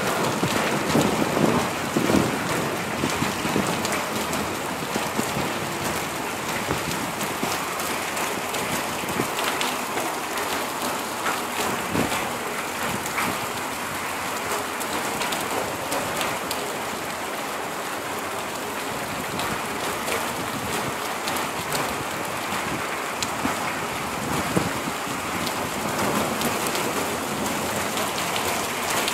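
Steady rain falling on flat concrete rooftops and standing puddles: an even hiss of water dense with individual drop ticks.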